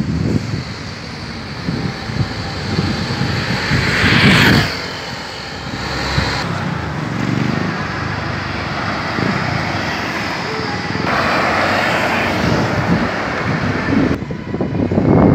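Road traffic: cars and buses driving past on a multi-lane highway, one vehicle passing close and loud about four seconds in, with wind buffeting the microphone.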